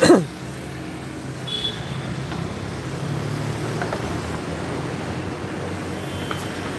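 Steady city street traffic: the running of passing cars and motorbikes. A short, loud voice-like sound falls in pitch right at the start.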